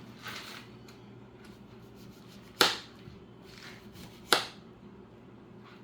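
Kitchen items being handled while preparing a drink: two sharp knocks about a second and a half apart, with light rustling handling noise between them.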